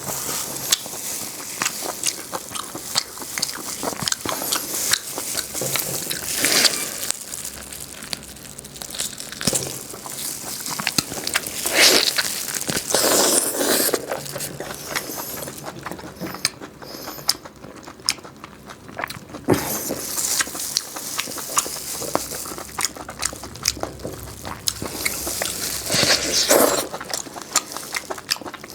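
Close-miked eating: steady chewing with crunching and many small mouth clicks, broken every few seconds by a louder bite.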